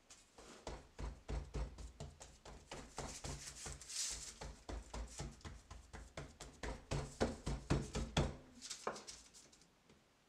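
Fingertips rapidly pressing and dimpling soft yeast dough in a parchment-lined metal baking pan: a run of quick soft thumps, about three or four a second, that stops about a second and a half before the end.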